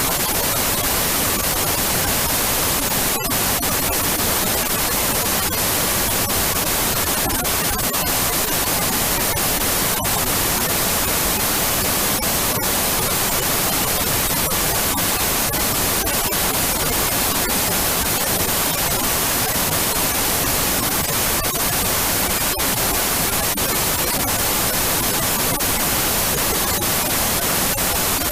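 Old analog television static: the steady, loud hiss of an untuned TV, with a few very brief dropouts now and then.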